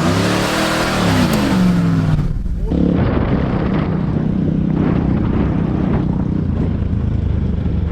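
1998 Dodge Ram 2500 pickup's engine revving up and back down, cut off sharply about two and a half seconds in; an engine then runs steadily.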